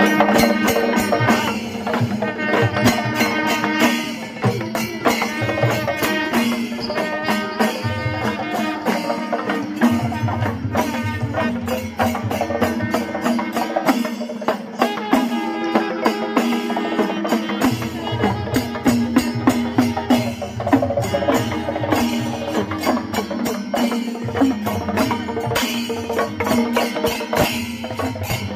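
Kerala temple percussion ensemble playing: brass ilathalam hand cymbals clash in a fast, steady rhythm with drums, under a long-held, wavering melody from a wind instrument.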